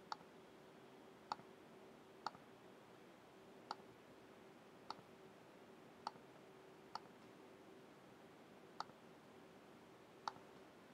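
About nine sharp single clicks of a computer mouse button, unevenly spaced a second or so apart, over a faint steady hum. Each click places a wire segment in a schematic editor.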